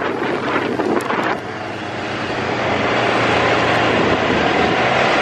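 Polaris RZR side-by-side driving on a paved road: a steady engine drone under wind and road noise. The wind gusts on the microphone during the first second and a half, then the sound settles into a steadier, slightly louder drone.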